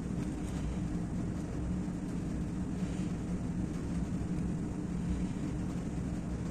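A steady low machine hum over an even rushing noise, with no change in pitch or level.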